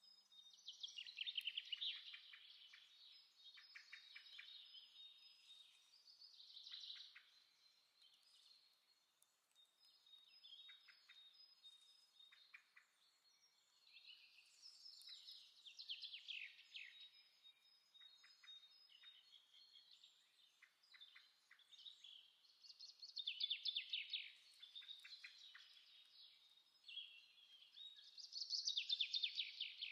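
Faint birdsong: clusters of quick chirps and trills recurring every few seconds, loudest near the start and in the last few seconds.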